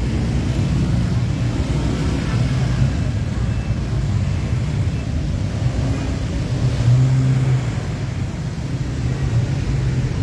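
Traffic noise from a jam of idling minibuses and cars: a steady low engine rumble, with one engine growing louder for a moment about seven seconds in.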